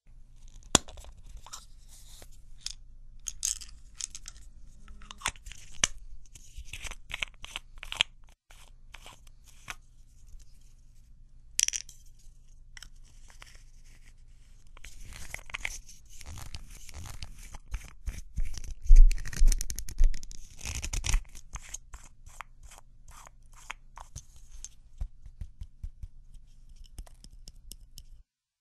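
Hands working a plastic screw-top pill crusher (Sabi Crush): many sharp clicks and knocks of the plastic parts, with a run of crunching and grinding in the middle, loudest about two-thirds of the way through, as a pill is crushed to powder.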